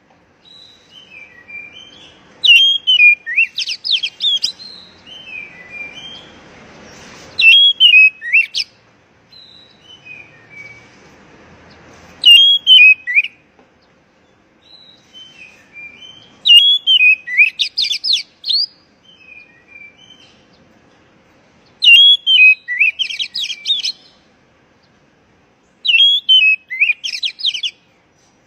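Oriental magpie-robin (kacer) singing: a loud phrase repeated about every four to five seconds, each a swooping whistle followed by a quick run of high notes, with soft quiet notes in between.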